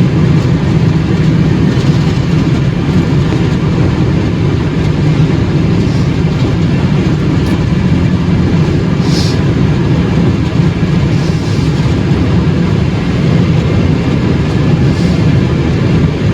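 Steady road and engine noise inside a car cruising at highway speed, strongest low down, with a brief hiss about nine seconds in.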